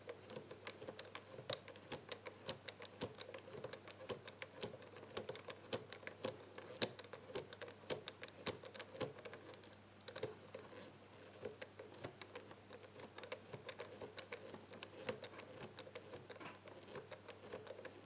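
Number wheels of an ABUS Tresor Chain Catena Combo 1385 four-wheel combination bike lock clicking as a thumb turns them notch by notch, feeling for the gates. The clicks are faint, quick and irregular.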